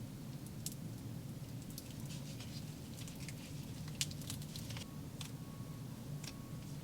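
Play slime being squished and handled, giving scattered small sticky crackles and clicks, with one sharper click about four seconds in, over a steady low hum.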